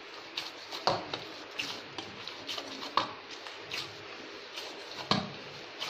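Semolina dough being kneaded by hand in a stainless steel bowl: soft irregular squishing and tapping, with a few sharper knocks against the metal bowl.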